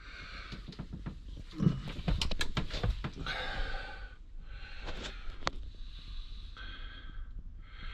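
Handling noise from an engine oil dipstick being wiped with paper and turned in the hands: soft rustling with scattered light clicks, most of them between about one and a half and three seconds in.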